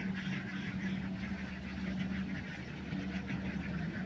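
A flock of ducks quacking in a continuous, overlapping chatter, over the steady low drone of a Kubota combine harvester's engine.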